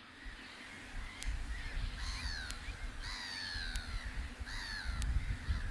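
Gull calling: three harsh drawn-out calls, each falling in pitch, the middle one the longest.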